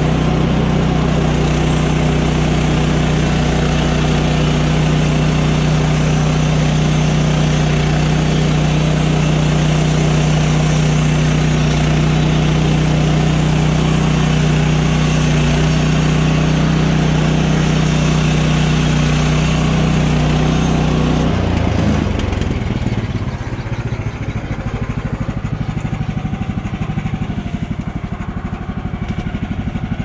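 Woodland Mills HM130 portable band sawmill running steadily under its Kohler engine while the blade cuts through a red pine log. About two-thirds of the way through, the steady engine note breaks off and the sound drops to a quieter, rougher running, as at the end of the cut.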